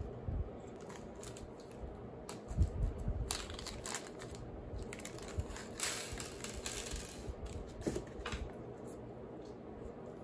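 Small parts being handled on a desk: scattered light clicks and taps of tiny screws and a small plastic parts bag, with a longer rustle of the bag about six seconds in.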